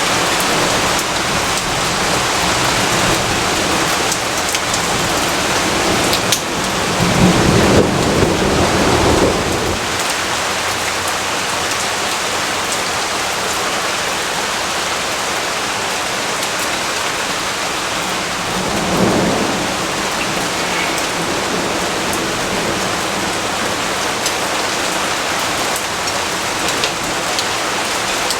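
Steady rain with two low rumbles of thunder: a longer, louder one starting about seven seconds in after a sharp crack, and a shorter, fainter one about nineteen seconds in.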